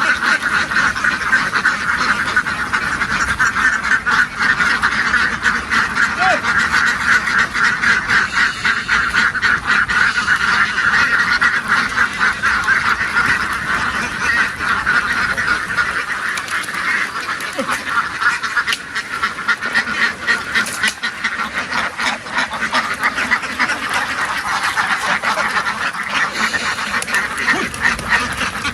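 A large flock of domestic ducks quacking continuously in a dense, overlapping chorus.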